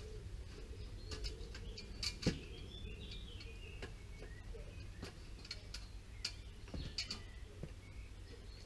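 Scattered light clicks and knocks of hand work on a timber porch frame, with one sharper knock about two seconds in, over a steady low rumble.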